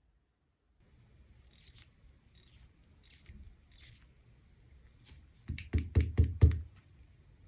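Workbench handling of a small watch with hand tools: four short scraping strokes, then a quick run of about six sharp knocks near the end.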